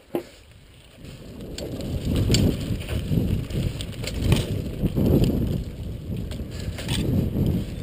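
Downhill mountain bike descending a dry dirt trail, heard from a camera on the rider. Wind rumbles on the microphone and tyres crunch over dirt, building up about a second in as the bike gathers speed. Scattered clicks and rattles come from the bike over bumps.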